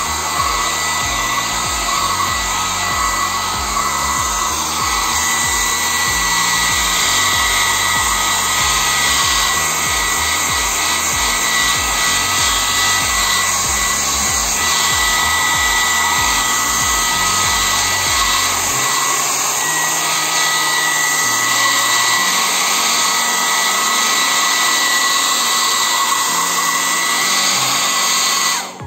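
Handheld hair dryer blowing steadily on a cool/normal heat setting, drying a freshly washed computer motherboard, with a steady motor whine in the airflow. It stops abruptly near the end.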